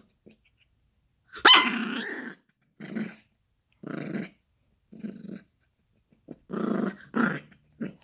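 Yorkshire terrier puppy play-growling over a plush toy in about eight short bursts with brief gaps between them. The loudest, sharpest burst comes about a second and a half in.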